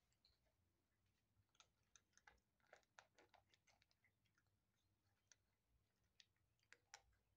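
Two kittens crunching dry kibble from a food bowl: faint, irregular crunches and clicks, bunched between about one and a half and four seconds in, with two more near the end.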